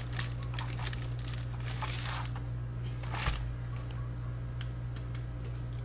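Plastic wrapper of a biscuit-stick snack packet crinkling for about two seconds, then a single sharp click a little after three seconds and a couple of faint ticks, over a steady low hum.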